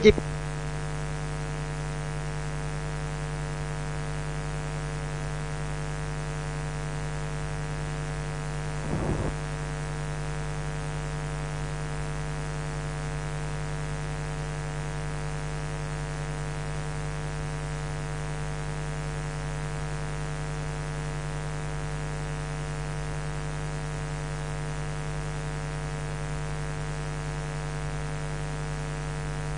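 Steady electrical mains hum with a buzz of many evenly spaced overtones, from the recording chain of an old sermon recording, with no speech over it. A brief faint sound lifts it for about half a second, about nine seconds in.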